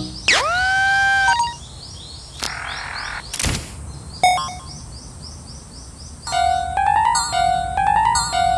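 Cartoon level-crossing sound effects: a swooping ringing tone at the start, faint repeated high chirps and a short whoosh in the middle, then from about six seconds a repeating electronic crossing alarm of alternating steady and rising notes.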